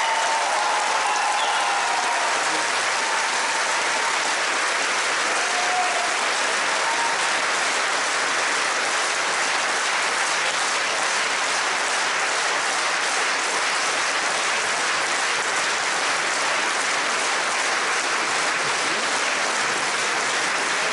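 A concert-hall audience applauding steadily and continuously.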